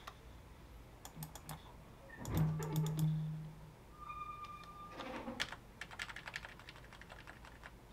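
Computer keyboard keystrokes and mouse clicks in scattered quick clusters, from copying and pasting notes in a music production program. A short low hum comes about two and a half seconds in, and a brief higher pitched tone about four seconds in.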